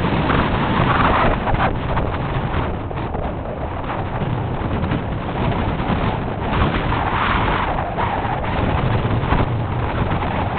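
Strong wind buffeting the microphone: a continuous rushing noise with heavy low buffeting that swells in places with the gusts.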